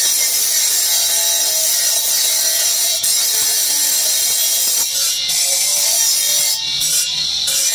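Marble being ground against a motor-driven spinning abrasive disc: a steady, high grinding hiss that drops away briefly when the stone comes off the disc, once about five seconds in and again for nearly a second near the end.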